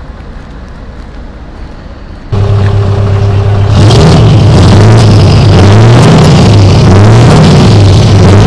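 A vehicle running quietly. Then, about two seconds in, a Scania truck engine comes in abruptly and very loud, revved several times with its pitch rising and falling.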